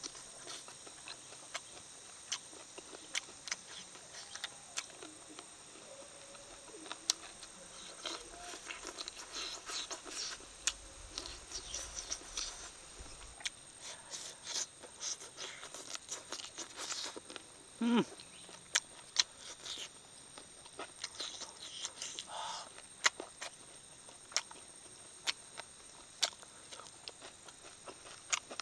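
Close-up eating sounds of a man chewing saucy fried chicken wings: a busy run of wet lip smacks and chewing clicks, with bursts of crunchy chewing.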